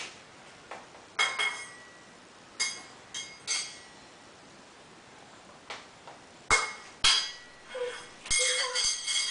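A metal spoon clinking against a small metal toy pot: light, ringing clinks in short bunches with pauses between, coming thicker near the end.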